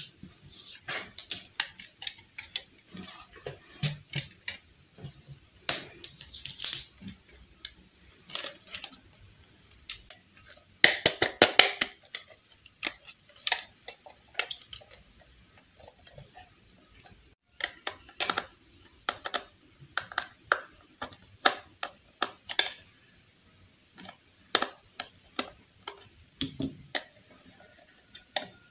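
Hard plastic clicking and tapping as a toy iron is handled and turned over in the hands, irregular single clicks with a quick run of clicks about eleven seconds in.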